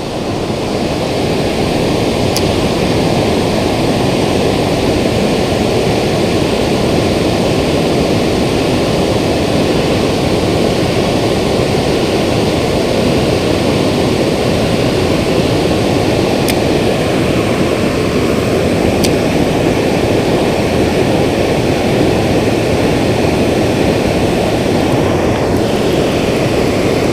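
Loud, steady rush of fast-flowing river water close by, an even noise that holds level throughout.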